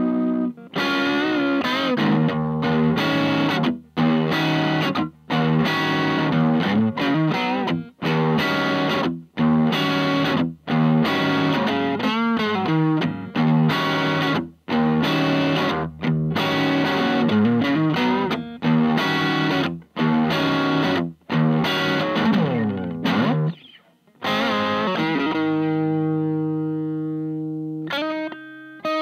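Electric guitar, a Stratocaster-style, played through a Little Rebel 2-watt amp kit into a Jensen CR8 speaker with a distorted tone. Rhythmic chords are cut short with brief stops between them, then a downward slide, then longer ringing chords near the end.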